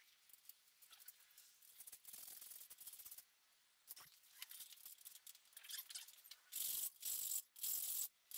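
Faint clinks and rattles of a metal rock and roll bed seat frame being folded up from flat into a seat and handled, then three short scraping noises near the end.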